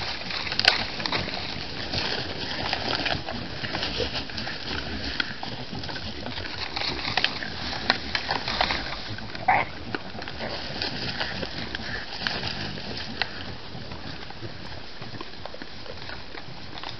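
A herd of collared peccaries foraging close to the camera: steady crunching, chewing and rustling in dry leaf litter, with sniffing and a short call about nine and a half seconds in.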